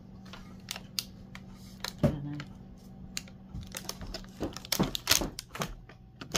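Clear plastic candy tray crackling and clicking as it is handled: a scatter of sharp, irregular clicks, thickest about four to five seconds in, with a single thump about two seconds in.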